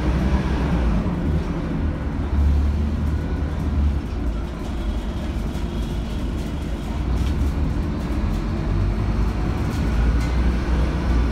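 Scania K280UB city bus's rear-mounted five-cylinder diesel engine droning, with road noise, heard from the back seats inside the cabin as the bus drives. The drone swells a couple of seconds in and again near the end, with occasional light rattles from the body.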